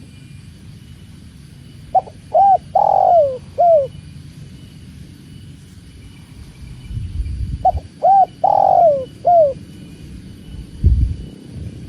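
Spotted dove (tekukur) cooing: two phrases of four or five hooting notes, the middle note drawn out longest, repeated about six seconds apart. A low thud comes near the end.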